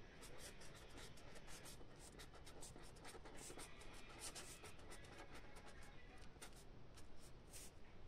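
Faint scratching of handwriting on paper: many short, quick, irregular strokes.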